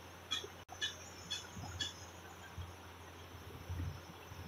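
Faint background chirping from a small animal: short high chirps about twice a second that stop about two seconds in, over low room tone. There is a brief dropout in the audio under a second in.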